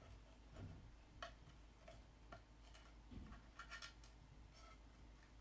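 Near silence with a few faint, light clicks and taps from handling the bow and craft board, including a small quick cluster of clicks and a soft low thump.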